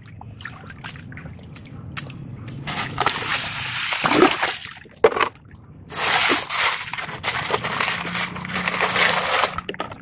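Hands sloshing and splashing plastic toy trucks through shallow muddy water: a spell of splashing about three seconds in, and a longer, louder one from about six seconds.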